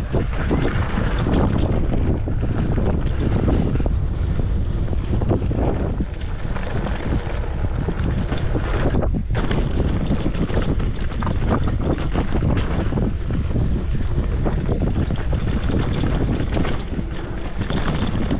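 Wind buffeting the microphone during a mountain bike ride, with many short clicks and rattles over it and a brief drop about nine seconds in.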